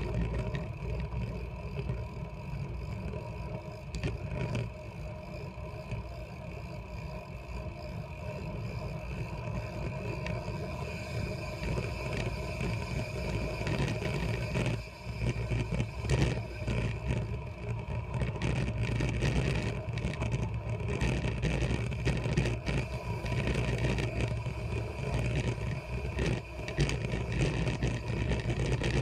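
Wind rushing over the microphone of a camera on a moving bicycle, with a steady low rumble of tyres on asphalt. From about halfway on it grows louder and rougher, with a run of short knocks and rattles as the bike rolls over cracked, patched pavement.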